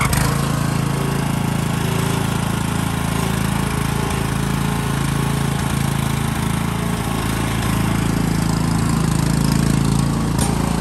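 The Wisconsin Robin gasoline engine of a Ryan LA28 walk-behind core aerator running steadily. It gets a little louder near the end.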